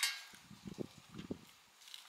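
A sharp metallic clink with a short ring, followed by a few soft, dull knocks.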